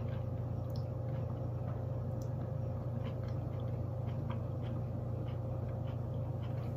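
A person chewing a mouthful of soft zucchini noodles in marinara sauce: small, irregular, faint wet clicks, over a steady low hum.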